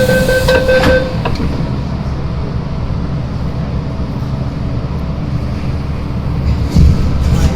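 An MTR M-Train's door-closing warning beeps, a pulsing tone that stops about a second in. Then comes the steady low rumble of the train running.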